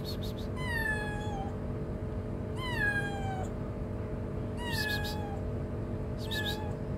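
Hungry tabby street kitten meowing four times, each meow starting high and sliding down in pitch, the last one shorter and fainter. A steady low hum runs underneath.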